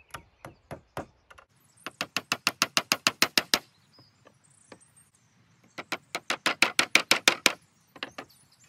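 Hammer driving small nails through the holes of a metal frame rail into a wooden beehive side piece: a few light taps to start the nail, then two quick runs of blows, several a second, with a pause between and a couple more taps near the end.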